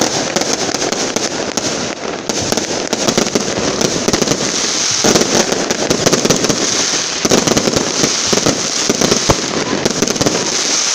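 Fireworks display: a dense, continuous barrage of crackling bangs and bursts, heavier from about halfway through.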